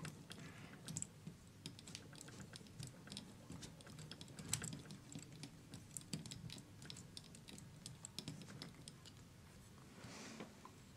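Faint, irregular small clicks and taps of fingers and a screwdriver working on parts of a model truck chassis.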